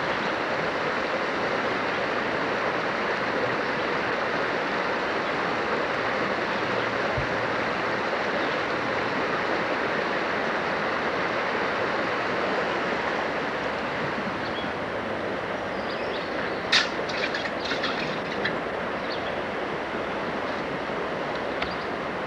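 Rushing creek water, a steady rush. About seventeen seconds in there is one sharp click, followed by a few fainter ticks.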